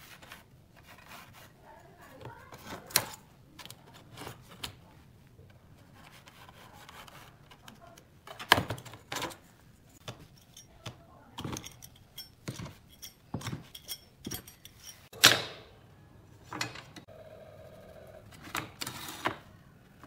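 Hand-tool handling noises on a pine board: a steel rule clicking and rubbing against nails and wood, with a few sharp hammer knocks, the loudest about eight and fifteen seconds in.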